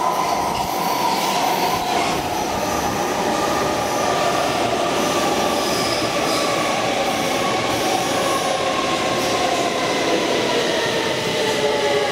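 A subway train running past along the platform: a loud, steady rumble with a whine of several tones that slowly fall in pitch.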